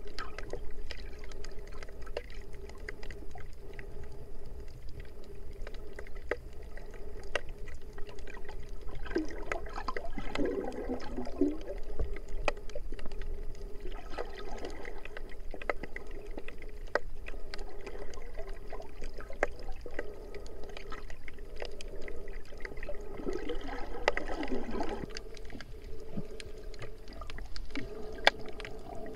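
Underwater sound picked up through an action camera's waterproof housing: a steady wash of water noise with a constant low hum and many scattered sharp clicks. Two louder wavering swells come about ten seconds in and again near twenty-four seconds.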